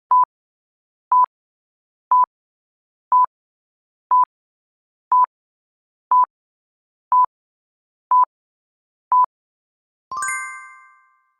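Ten short, identical electronic beeps, one a second, then a bell-like chime that rings out and fades over about a second: a countdown timer running down and sounding the end of the time allowed to answer.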